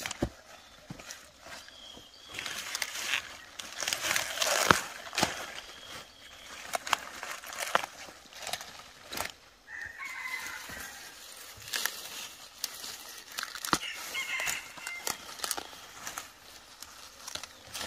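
Chickens calling twice in the second half, between rustling and scattered sharp knocks and clicks; the loudest rustling comes about four seconds in.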